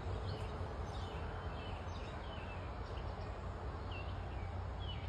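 Small birds chirping now and then over a steady low rumble.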